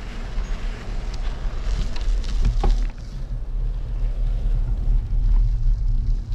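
Wind buffeting the microphone of an action camera riding on a moving bicycle: a steady low rumble, with a brief rise of higher hiss about two seconds in.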